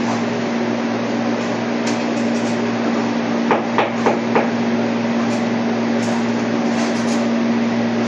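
Four quick hammer strikes with a short metallic ring about halfway through, over a steady mechanical hum.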